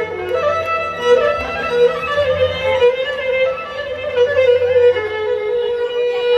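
Pontic lyra (kemenche), a bowed three-string fiddle, playing a melody over a held note in traditional Pontic Greek dance music.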